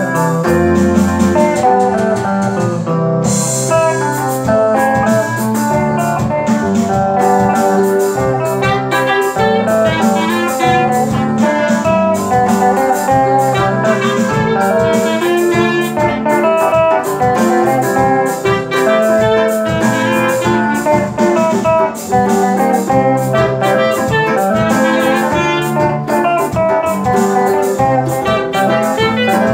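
Live instrumental gospel praise music from a small band of guitar, clarinet and two electric keyboards, with the clarinet carrying held melody notes over keyboard chords and a steady bass line.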